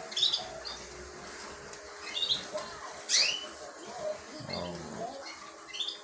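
Caged canaries chirping: several short high calls, the loudest a quick sweeping chirp about three seconds in.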